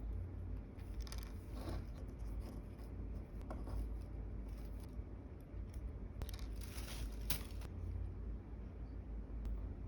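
Small hand-crafting sounds: a few short cutting and scraping strokes on paper or other light craft material while a miniature chair is made, the busiest stretch about six to seven and a half seconds in, over a low room hum.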